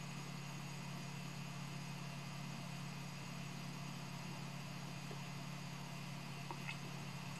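Steady low hum of a powered-on FLSUN S resin 3D printer, with a couple of faint taps of a finger on its touchscreen near the end.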